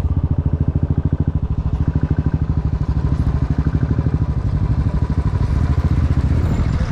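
A motorcycle engine running steadily with a rapid, even beat.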